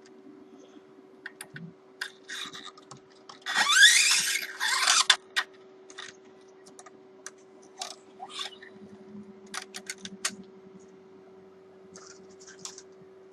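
Electric guitar strings and hardware being handled during restringing: scattered small clicks and taps, with a louder scraping swish of a metal string being dragged about four seconds in. A steady hum runs underneath.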